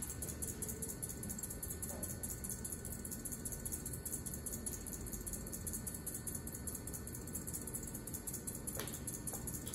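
Steady hum and whine of electric potter's wheels spinning, with a couple of faint clicks near the end.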